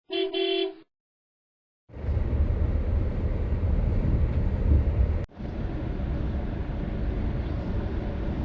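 A brief pitched tone at the very start, then after a second of silence a steady low noisy rumble that drops out briefly about five seconds in.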